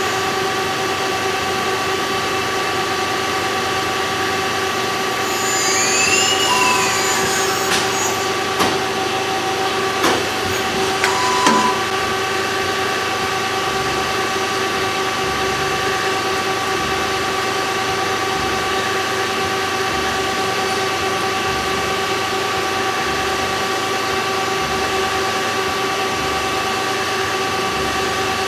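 CNC machine tool running with a steady mechanical whine and hum. About six seconds in a short tone rises and falls, and a few sharp clicks follow between roughly 8 and 12 seconds.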